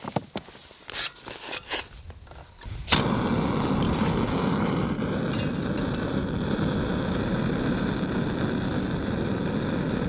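Canister-gas backpacking stove lit with a sharp click about three seconds in, then burning with a steady hiss under a titanium mug of water. Before it lights, light taps of the mug and water bag being handled.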